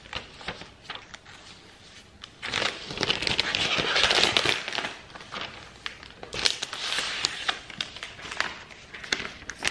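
Crinkling and crackling of the thin protective plastic wrap on a brand-new MacBook Air as it is handled and peeled off. It comes in two spells, a longer one from about two and a half to five seconds in and a shorter one around six and a half seconds.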